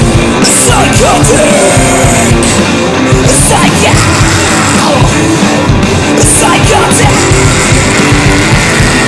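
Loud thrash metal music with a harsh, screamed vocal over the band.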